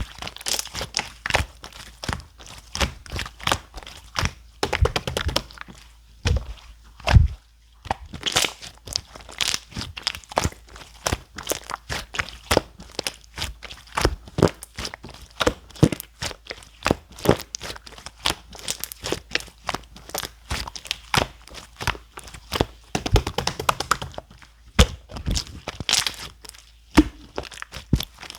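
Clear slime being squished and folded by hand, giving a dense, irregular stream of sharp clicks and pops with a few louder snaps.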